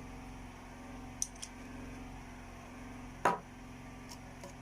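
A few light clicks and then one sharper knock about three seconds in, from handling a cosmetic bottle and a tablespoon while measuring out an oil, over a steady low hum.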